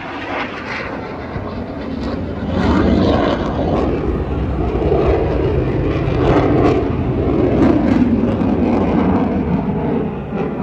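Aircraft engine noise, a steady rumble without a clear pitch that swells about two and a half seconds in and stays loud.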